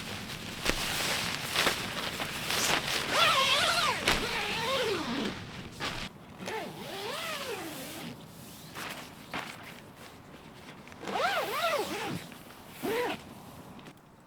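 A dog whining in wavering, rising-and-falling whimpers, three times, over the rustling and handling of camping gear.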